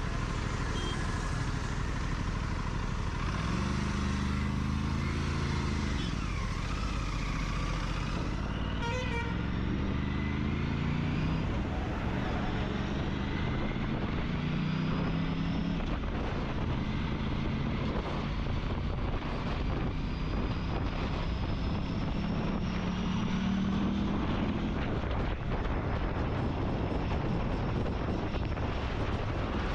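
Motorcycle engine accelerating hard, the note climbing through the revs several times over a steady rush of wind and road noise.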